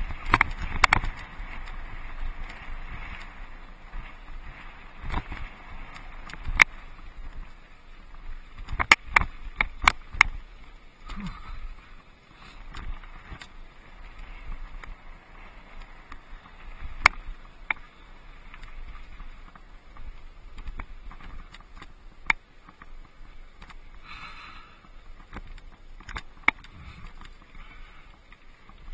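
Mountain bike riding over a rocky dirt singletrack: steady tyre-on-gravel and rattle noise, with sharp knocks from bumps in the trail, several in quick succession about nine to ten seconds in.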